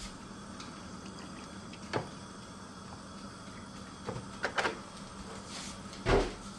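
Kitchen handling sounds: a few light knocks and clicks of containers and utensils, then a louder thump near the end, over a faint steady hum.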